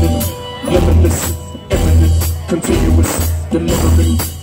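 Live band playing amplified music, with drums, bass and guitars hitting in short stop-start phrases and brief drop-outs between them.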